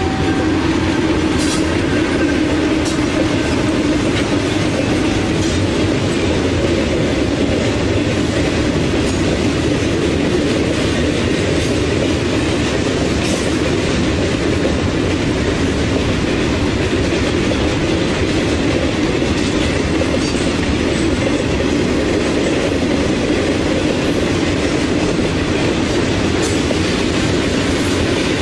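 Freight train cars rolling past: a steady loud rumble of steel wheels on the rails, with scattered sharp clicks as the wheels cross rail joints.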